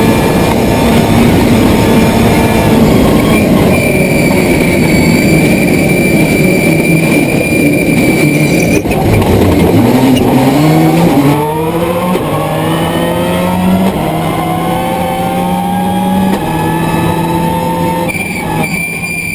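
Subaru Impreza S11 WRC's turbocharged flat-four engine on a rally stage, mostly held at high revs with a high whine over it. About nine seconds in the revs drop sharply as the car brakes and changes down. It then accelerates hard, climbing through the gears with stepped changes in pitch.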